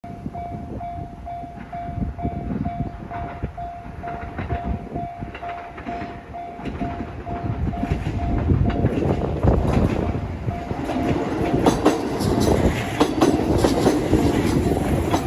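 Japanese level-crossing warning bell ringing in rapid, even pulses while a train approaches and rolls slowly over the crossing. The rumble grows from about halfway through, and the wheels clack over the rail joints near the end.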